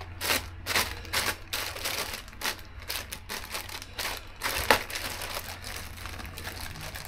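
Hands handling the new air filter's plastic packaging: a run of irregular, crisp clicks and crinkles that thin out near the end.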